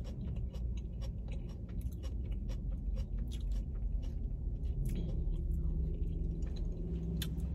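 A person chewing food close to the microphone, with many quick wet mouth clicks and smacks over a steady low background rumble. A faint low hum joins about five seconds in.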